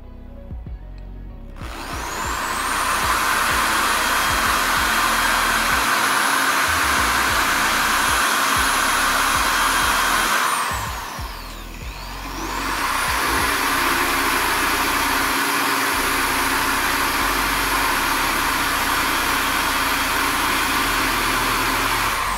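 Corded Bosch electric drill running at full speed with a high steady whine, spinning an office-chair caster wheel against a cloth to clean it. Halfway through it spins down, then speeds back up and runs until it winds down at the end.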